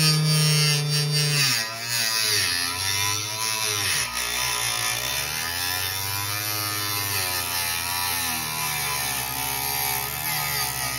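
Electric saw cutting a plastic model-kit part. The motor's steady hum drops in pitch about a second and a half in, then keeps sagging and recovering as the blade bogs down in the plastic and picks up again.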